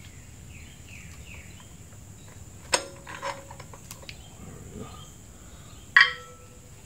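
A few scattered metallic clinks of a screwdriver and loose parts against the steel front wheel hub during teardown, the loudest about six seconds in with a brief ring.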